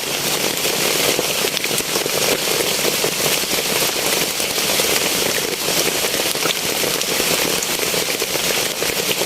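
Heavy rain falling steadily, a loud dense patter of countless drops striking surfaces.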